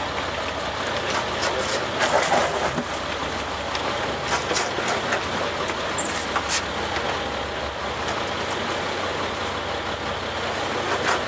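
A fishing boat's engine running steadily under a constant rush of wind and water, with a few faint ticks about halfway through.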